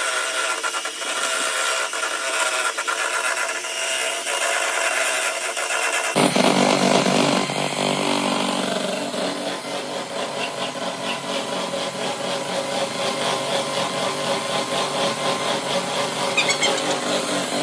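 A 300-watt Italia electric hand mixer running steadily, its beaters whipping chilled liquid cream in a plastic bowl. The motor sound changes abruptly about six seconds in and carries more low end after that.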